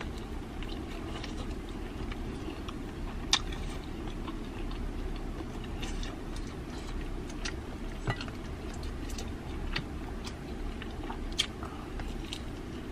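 A person chewing and eating bakso (meatball soup with fried pieces) by hand. A few sharp clicks stand out, about three, the loudest a few seconds in, over a steady low background hum.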